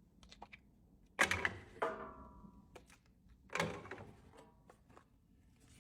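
A safe being opened: a few sharp metal clunks, one leaving a short ringing, with small clicks between them.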